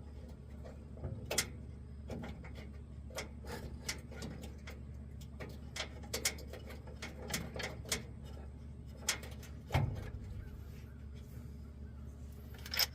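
Irregular light clicks and taps of hand tools and parts being handled, with a heavier knock about ten seconds in, over a steady low hum.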